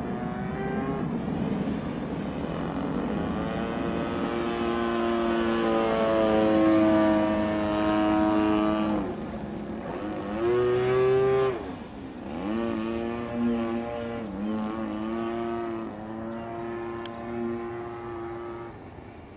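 Single-cylinder two-stroke 30cc gas engine and propeller of an MX2 RC aerobatic plane in flight, its pitch rising and falling with the throttle. About halfway through it is throttled back sharply twice and opened up again, and it fades near the end.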